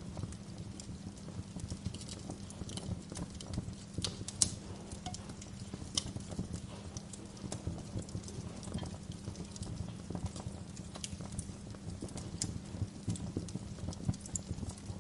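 Wood fire crackling in a fireplace: a dense run of irregular small crackles with a few sharper pops, the loudest about four and a half seconds in, over a low steady rumble of the flames.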